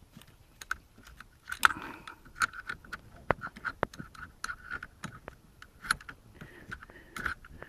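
Hand wrench clicking and metal clinking on the engine as the bolts of the engine lifting bracket are unscrewed: irregular sharp clicks and short metallic rattles.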